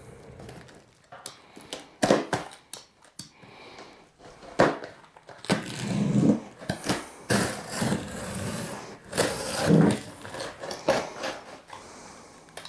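Packaging being torn open and handled: irregular knocks and clicks with stretches of rustling and crackling as the box, tape and wrapping are pulled apart.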